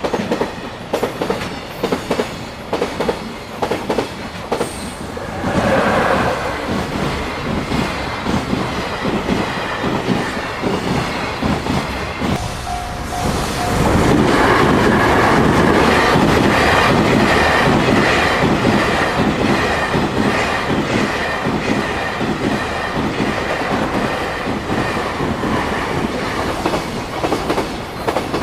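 Freight train of container wagons passing at speed, its wheels clattering over the rail joints in a steady rhythm of sharp clicks; the clatter swells louder about halfway through and stays loud.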